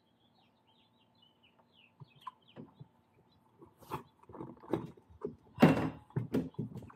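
Irregular knocks, thuds and rubbing as an electric scooter's hub-motor wheel and rubber tire are handled, turned and set down on a plastic bucket. The sounds start about two seconds in and are loudest near the end.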